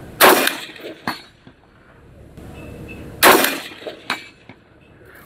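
Two rifle shots from a 5.56 mm M16A2 about three seconds apart, each a sharp crack with a short tail, and each followed just under a second later by a fainter short crack.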